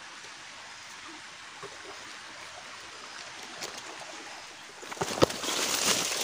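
Steady rush of a flowing forest creek. About five seconds in, louder footsteps and rustling of leaves and undergrowth with sharp crackles start as the walker moves off.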